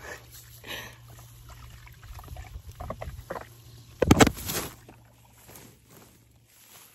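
Camera handling noise in tall weeds: grass brushing and rustling against the microphone, with soft clicks and one loud thump about four seconds in. A faint low steady hum lies underneath.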